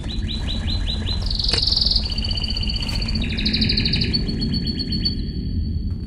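Canary singing: a run of quick chirps, then fast trills and long whistled notes, over a low steady rumble.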